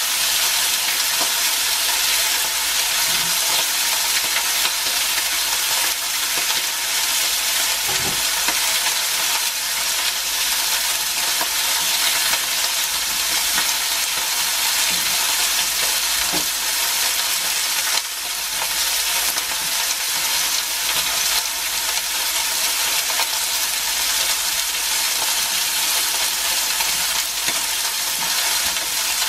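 Rump steak sizzling steadily in hot oil in a thick-based frying pan: a continuous, even frying hiss.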